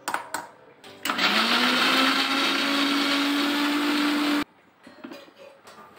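Electric mixer grinder running in one burst of about three seconds, grinding garlic and whole spices. The motor spins up with a short rising whine, runs steadily, then cuts off suddenly. A few clicks and clatters come before it, as the jar is loaded and set on the base, and a few more after it.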